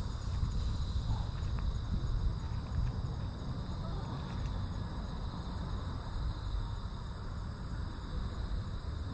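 Insects trilling steadily at a high pitch, over a constant low rumble.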